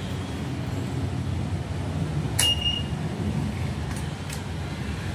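Kymco KRV 180 scooter's single-cylinder engine idling steadily after a throttle-body and fuel-injector cleaning. A sharp click comes about two and a half seconds in, with fainter clicks a little later.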